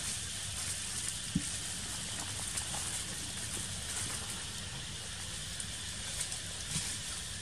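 Light, scattered crackling and rustling of dry leaf litter as macaques move over it, against a steady high hiss of outdoor ambience.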